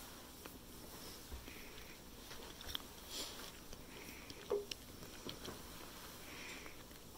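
A man quietly chewing a piece of communion bread, with breaths through the nose every second or two and a few small clicks and knocks; the loudest is a short knock about four and a half seconds in.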